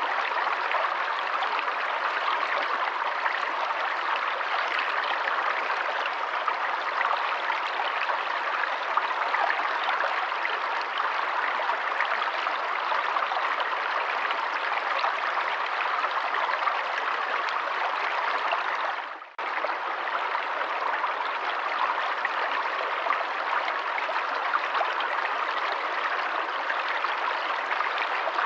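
Forest stream running water, flowing steadily; about two-thirds of the way through it briefly fades out and straight back in.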